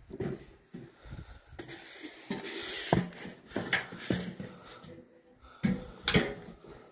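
Handling noises at a metal roadside mailbox: rustling and scraping as a small cardboard package is pulled out, with several sharp clanks and knocks from the mailbox and its door.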